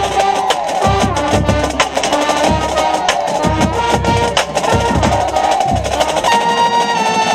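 High school marching band playing brass and drums: sustained brass lines over a steady bass-drum beat about twice a second with snare clicks, ending in a long held brass chord. A trumpet played right at the microphone sounds up front.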